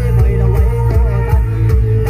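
Loud dance music with a heavy bass beat and a wavering melody on top, played through the stacked loudspeakers of a Thai mobile sound-system cart (rot hae).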